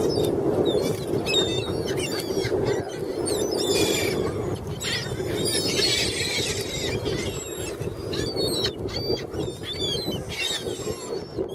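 A flock of seagulls calling: many short, high cries overlapping, thickest around the middle, over a steady low background noise.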